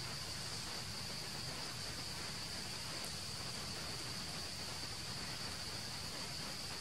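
A steady, high-pitched insect drone, unchanging throughout, over an even background hiss.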